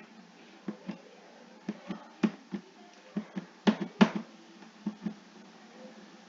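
A run of short, sharp taps or clicks, mostly in quick pairs that recur about once a second, the loudest two near the middle.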